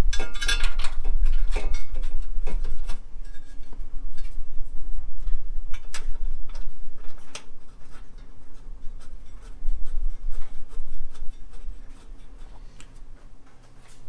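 Nuts being run onto the bolts of a steel battery tray: a run of small metallic clicks and clinks, most frequent in the first few seconds, over a low steady rumble.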